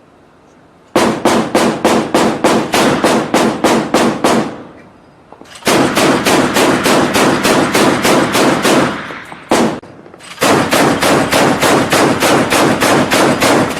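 Mk38 25mm M242 Bushmaster chain gun firing three bursts of automatic fire at about four shots a second, each burst about three to four seconds long with a short pause between.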